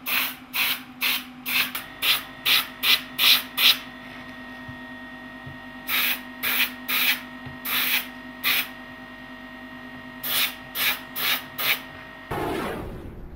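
Airbrush spraying in short hissing bursts, about two to three a second, in several runs with pauses between, over a steady mechanical hum.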